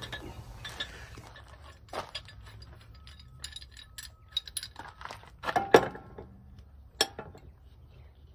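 Metal clinking and clicking of hand tools and bolts being worked at a planter's gauge wheel hub, with a few louder knocks about five and a half and seven seconds in.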